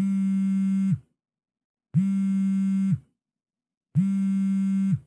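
Mobile phone ringing with an incoming call: three identical electronic rings, each a steady low buzzy tone about a second long, a second apart.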